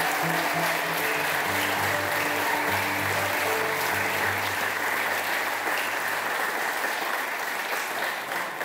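A room of wedding guests applauding steadily, over music with low held notes. The clapping thins out near the end.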